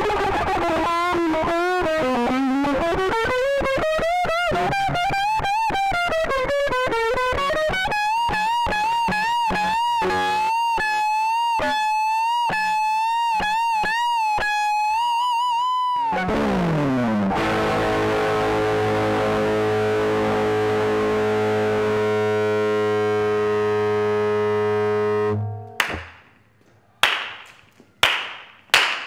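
Distorted electric guitar solo: bent, wavering lead notes and fast picked runs, then a long held note with wide vibrato. About halfway through, the pitch swoops steeply down and a low note rings for several seconds before it cuts off. Near the end, one person claps slowly.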